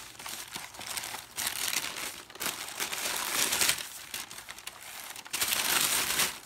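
White paper packing crinkling and rustling as it is pulled off a boxed model, with bubble wrap rustling beside it. There are louder bursts of crinkling about three and a half seconds in and near the end.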